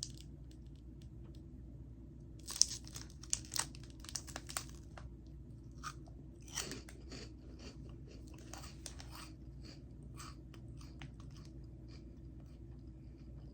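A person biting into and chewing a crunchy snack, with clusters of sharp crunches a few seconds in and again in the middle, then fainter chewing near the end.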